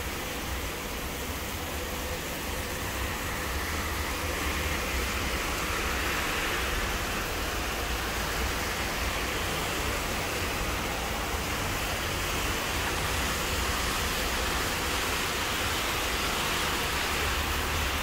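Steady hiss of rain falling, mixed with the hiss of car tyres on the wet road, which swells about a third of the way in and again near the end.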